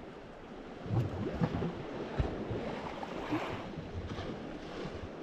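Sea waves washing on the shore with wind noise on the microphone, and a few soft knocks about one and two seconds in.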